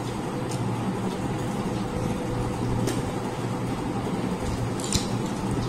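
Eating by hand: soft chewing and mouth sounds with a few faint clicks, over a steady low hum.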